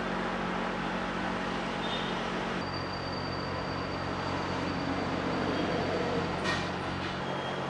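Steady low hum over a bed of background noise. Its character changes a little under three seconds in, and there is one sharp click near the end.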